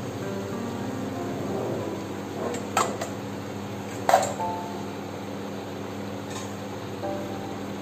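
Background music with two sharp metallic clinks, about a third and just over halfway through, the second louder: a small steel bowl knocking against steel kitchenware.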